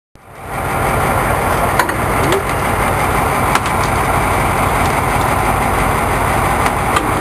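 A boat's engine running steadily, with a few sharp clicks from gear on deck.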